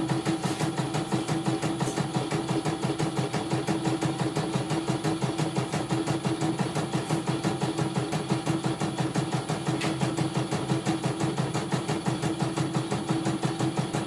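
CNY E900 embroidery machine stitching a design, its needle going up and down in a fast, even rhythm over a steady motor hum. The machine had been completely dead, and this is its test embroidery after repair.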